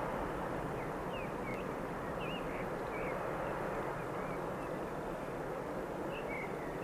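A diesel locomotive running away into the distance, its engine and wheels a steady rumble that fades slowly. Faint bird chirps sound over it.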